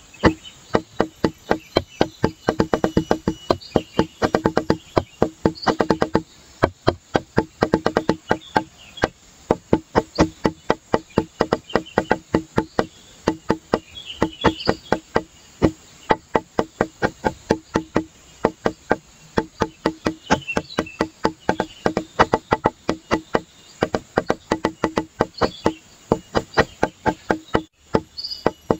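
Background music: a light percussive track with a quick, steady beat of short clicking notes over a held low note. It drops out for a moment near the end.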